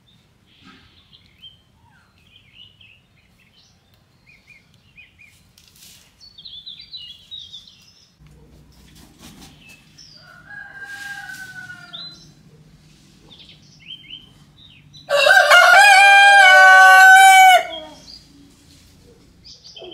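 Rooster crowing once, loud, for about two and a half seconds near the end. A shorter, fainter call comes about ten seconds in, with scattered small bird chirps around it.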